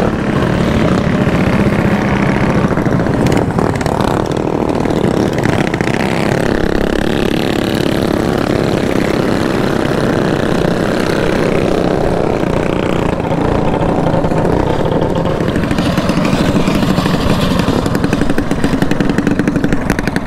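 Mini bike's small single-cylinder engine running steadily under way, heard close up from the rider's helmet, with other mini bike engines running nearby. Near the end the engine note breaks into a rapid chugging as the bike slows.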